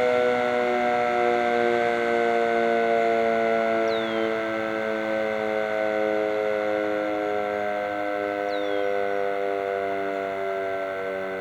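Fire house siren sounding during a siren test: several tones sound together as a chord, sinking slowly in pitch and level as it winds down.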